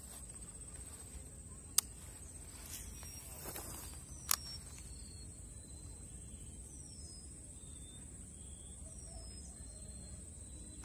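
Pondside outdoor ambience: faint scattered bird chirps over a steady high whine, broken by two sharp clicks about two and a half seconds apart.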